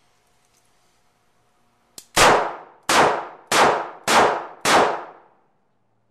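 Five quick shots from a Smith & Wesson 637 snub-nosed .38 Special revolver, a little over half a second apart, starting about two seconds in. Each shot rings out with a short echoing tail.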